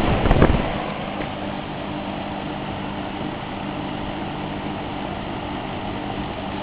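Lakewood model 9705 20-inch box fan with aluminium blades running: a steady rush of moving air over a low electric-motor hum. A couple of knocks sound in the first half-second.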